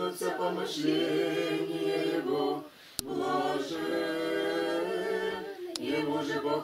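Voices singing an Orthodox liturgical chant a cappella, in long held notes, broken once by a short pause with a sharp click about three seconds in.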